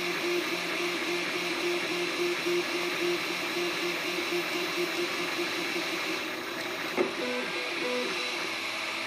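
3D printer printing a part: its stepper motors give short, rapidly repeating tones as the print head moves back and forth, over a steady hiss. About seven seconds in there is a click and the tones change pitch as the moves change.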